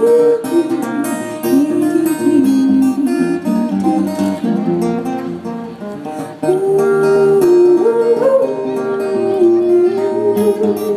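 Instrumental break in a live acoustic song: acoustic guitar strumming under a sliding melody line, with no words sung. The music dips briefly about six seconds in, then picks up again.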